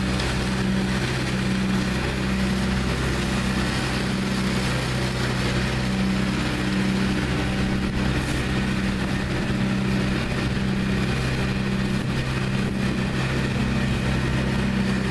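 Trailer-mounted leaf vacuum running steadily, its engine and fan giving a constant loud drone with a rush of air as the hose sucks up leaves. A slow, regular throb runs through the drone.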